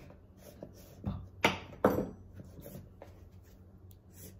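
Knife and plastic peanut butter jar being handled: a table knife scraping and clacking against the jar, and the plastic lid going back on, with a few sharp clacks between about one and two seconds in.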